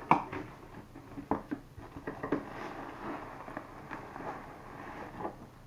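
Cardboard box and plastic wrapping rustling and scraping as a plastic-bagged back massager is pulled out of its box, beginning with one sharp snap and followed by scattered clicks and crinkling.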